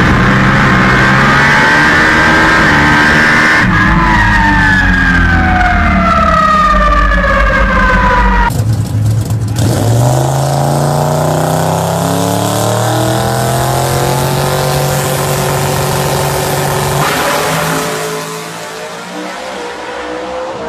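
Twin-turbo billet Ford Coyote V8 drag-racing engine at full power, loud, its pitch falling for several seconds. After a sudden cut it climbs steadily in pitch again, then drops quieter near the end.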